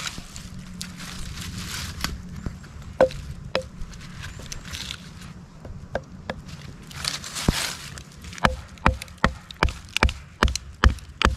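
A Gerber LMF II knife being batoned into a piece of wood, its spine struck with a baton. There are a few scattered knocks at first, then a steady run of knocks about two or three a second over the last few seconds.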